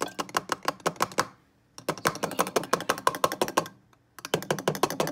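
A red plastic funnel rattling against the neck of a glass bottle as it is jiggled: rapid clicking, about nine clicks a second, in three runs with short pauses between them.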